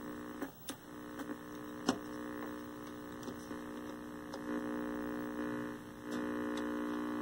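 1973 Toshiba C321 hybrid tube/transistor colour TV giving a steady buzzing hum, broken by scattered sharp clicks and snaps as its tuner knob is worked. The set is arcing inside the tuner. The hum drops out briefly about half a second in and again near the end, then returns louder.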